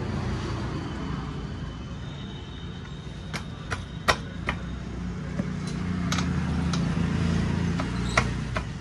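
A motor vehicle engine running steadily nearby, its rumble swelling for a few seconds past the middle, with several sharp metallic clicks of tools on the bike's parts.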